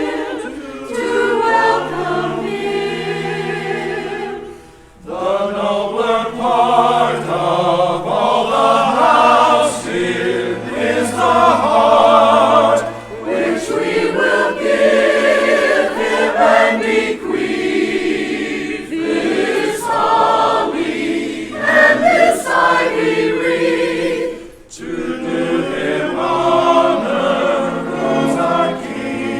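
Church choir singing in harmony, with two brief pauses between phrases, about five seconds in and about five seconds before the end.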